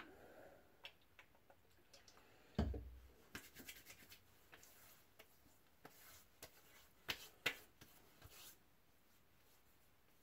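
Faint hand sounds of aftershave being rubbed and patted onto the face, with a low thump about two and a half seconds in and two sharp pats a little after seven seconds.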